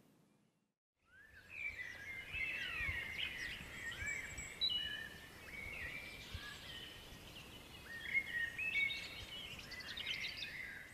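Birds chirping and singing: a busy chorus of quick high chirps and short gliding notes over a faint outdoor hiss, starting about a second in after a moment of silence.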